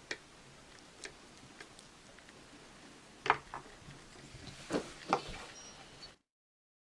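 Handling of a small plastic toy and its packaging: a few scattered sharp clicks and light knocks with quiet between them. The sound cuts off to dead silence near the end.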